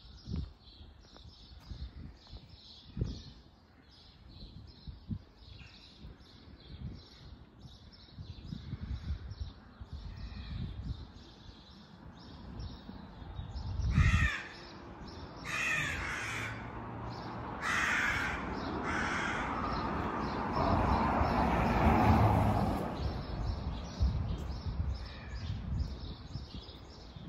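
Crows cawing: several harsh caws about halfway through, over steady walking footsteps at about two steps a second. A broader rushing sound swells and fades after the caws.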